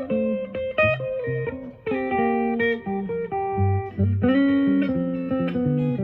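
Epiphone Sheraton semi-hollow electric guitar playing a slow blues in G: picked single notes and chords ringing, with low bass notes underneath.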